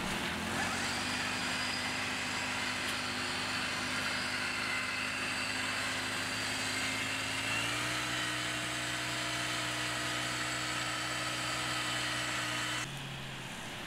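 Small gasoline engine of a roller screed running steadily as it spins the roller tube through wet concrete. Its pitch steps up slightly about eight seconds in, and it drops quieter just before the end.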